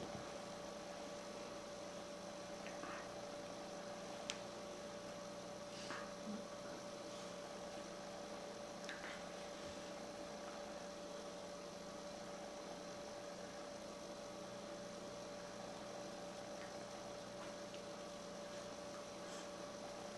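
Faint, steady electrical hum holding one constant tone, with a few soft clicks and rustles here and there.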